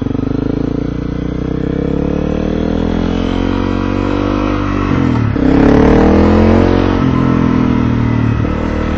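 Motorcycle engine running under way, its pitch climbing steadily for about five seconds, dipping sharply for a moment, then louder for a couple of seconds before easing off.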